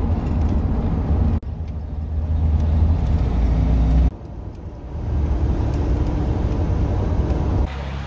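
Road and engine noise heard inside a 1997 Dodge Roadtrek camper van cruising on the highway: a steady low rumble, with sudden shifts in level where the footage is cut, about one and a half and four seconds in and again near the end.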